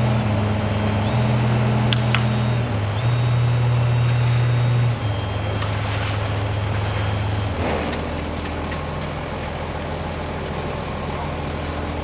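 Diesel engines of a concrete pump truck and ready-mix truck running. The engine note steps up and down in pitch several times, then settles lower and quieter about eight seconds in.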